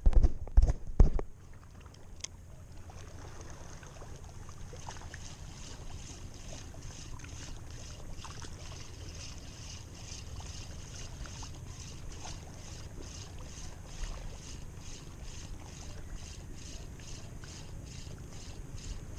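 A cast with a light spinning rod: a few loud knocks and handling thumps in the first second. Then the spinning reel is cranked steadily to retrieve the lure, an even ticking at about two to three a second over a low wind rumble.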